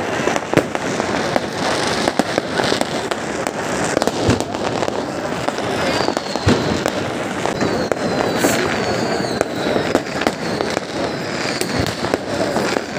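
Fireworks going off close by: a steady run of bangs and crackling. From about halfway, short high whistles join in.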